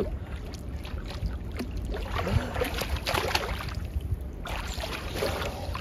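Pool water splashing and sloshing as a swimmer's arms pull through the water in front-crawl strokes, in a couple of irregular spells, over a steady low rumble.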